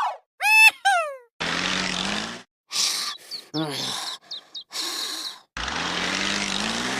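Truck engine sound effects: two spells of engine noise rising in pitch as if revving, with short squeaky chirps between them, after two quick gliding whistle-like sounds at the start.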